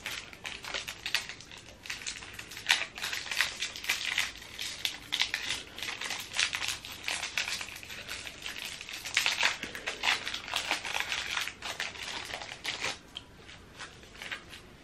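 Wrapper of a Feastables Deez Nutz chocolate bar crinkling as it is torn and peeled open by hand, in irregular crackles.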